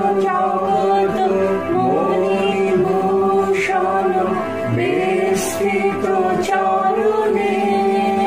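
A small group of men's and women's voices singing a slow song together, holding long notes and gliding between them.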